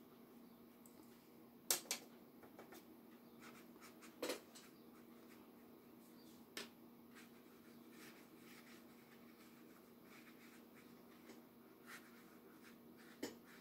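Quiet, faint brushing of a watercolour brush on paper over a steady low room hum, broken by a few sharp clicks and taps about 2, 4, 6½ and 13 seconds in.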